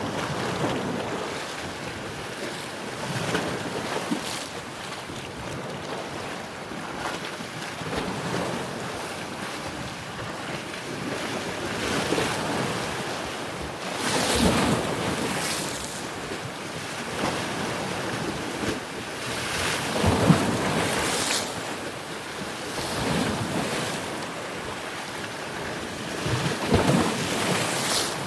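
Ocean surf: waves breaking in irregular surges every few seconds over a continuous wash of water noise.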